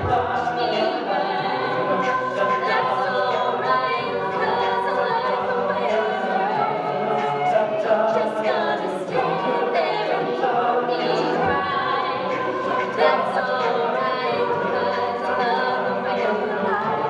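A collegiate a cappella group singing a pop mash-up live, several voices in harmony over a steady beat that the singers make with their mouths.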